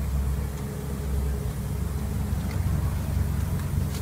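Low, steady rumble of a vehicle engine running, with a few faint clicks.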